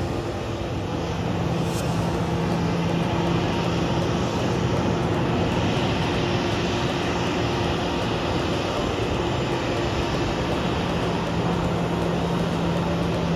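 Airliner jet engines running on an airport apron: a steady rushing noise with a low hum under it.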